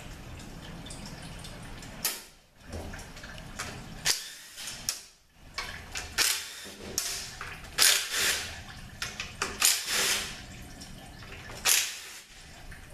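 Cordless drill/driver run in short bursts, one after another, backing out the oil pan bolts of a 66RFE automatic transmission.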